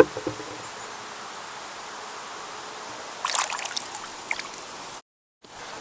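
Water splashing and trickling at the side of a canoe as a small fish is let go over the side, with a short knock at the start and a brief burst of splashing about three seconds in.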